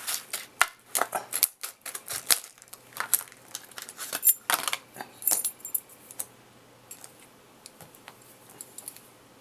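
Small metallic clinks and rattles of a padlock and lock-picking tools being handled, dense for about the first six seconds, then thinning to a few light ticks.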